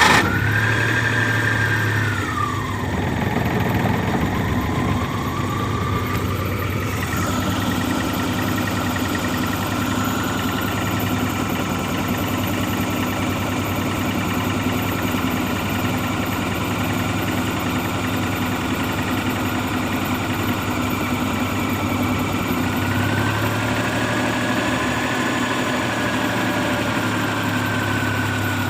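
Maruti Omni's three-cylinder petrol engine idling just after starting, its speed high for the first two seconds, then settling, and rising briefly again for a few seconds near the end.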